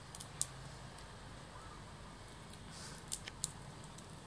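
Dry bean pods being cracked open by hand: a few small, sharp clicks and crackles, two near the start and two more a little after three seconds in.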